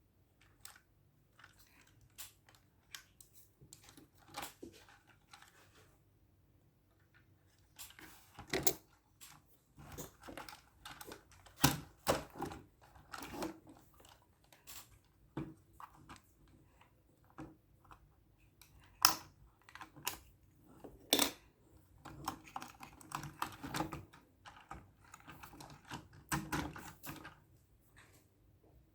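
Irregular clicks, taps and rustling from hands handling a plastic RC rock crawler and its packaging. The sound is sparse at first and gets busier about eight seconds in, with a few sharper knocks.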